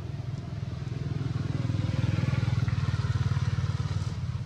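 A motor vehicle's engine rumbling, swelling about two seconds in and easing near the end.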